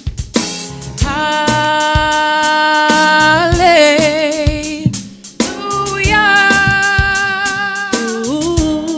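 Live gospel praise music: a singer holds long notes with vibrato, with a short run of notes about four seconds in, over a drum kit and bass. The music drops out briefly about five seconds in, then another long note is held.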